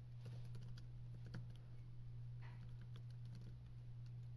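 Faint typing on a computer keyboard: irregular keystroke clicks over a steady low hum.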